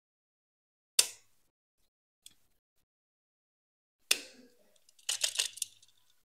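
Sharp clicks and small clatters of a die-cast toy truck's metal and plastic parts being handled: one loud click about a second in, another about four seconds in, then a quick run of rattling clicks as the snap-on plastic roof is worked loose near the end.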